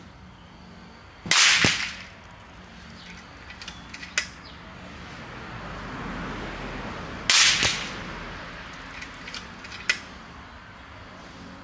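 Two shots from a Vulcan 3 PCP air rifle fitted with a Uragan barrel, firing 40-grain slugs at about 1,110–1,120 feet per second, just supersonic. Each is a loud sharp report followed about half a second later by a second sharp crack, the shots about six seconds apart, with lighter clicks in between.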